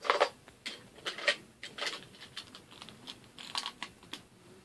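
Irregular clicks and knocks of small hard objects being handled, with a cluster of sharper ones in the first two seconds and lighter scattered ticks after.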